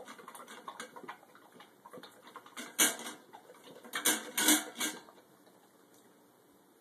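A yellow Labrador eating from a stainless steel bowl in a wire stand: quick clicking crunches and the metal bowl clattering against the stand. The loudest clatters come about three seconds in and again between four and five seconds. The sounds stop about five seconds in.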